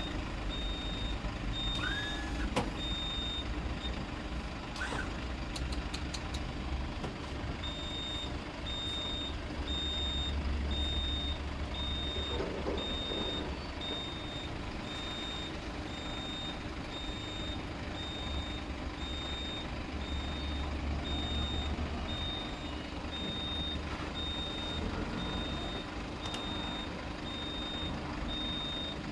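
WL-UVL-700-S-1090 van wheelchair lift running as its platform extends from under the floor: a warning beeper gives a steady string of high beeps, about one and a half a second, with a pause of a few seconds near the start, over the low hum of the lift's drive.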